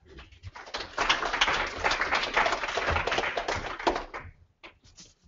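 Audience applauding: a dense patter of hand claps that swells about a second in, holds for about three seconds and thins out to a few last claps near the end.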